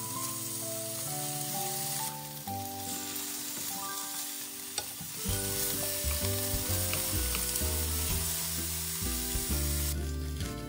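Food frying in hot oil in a nonstick frying pan, a steady sizzle as the pieces are turned with chopsticks; the sizzle stops near the end.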